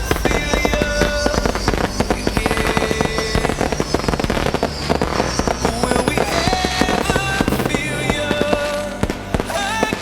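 A fireworks display with rapid, continuous bangs and crackling, and music playing alongside.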